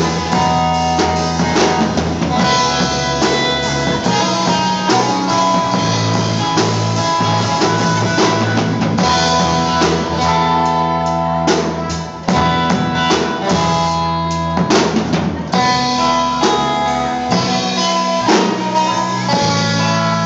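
Live worship band playing an instrumental passage: electric guitar chords over drum kit and bass, with regular drum hits.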